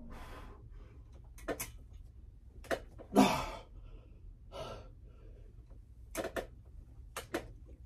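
A man's hard, straining breaths of exertion: short sharp puffs and gasps every second or so, sometimes in quick pairs, the loudest a longer gasp about three seconds in.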